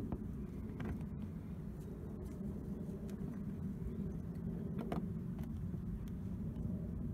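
Steady low vehicle rumble, with a few faint clicks about a second in and again near five seconds.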